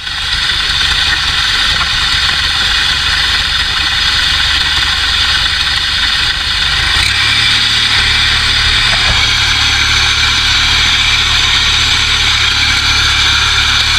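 Tractor engine running steadily, its low note shifting slightly about seven seconds in.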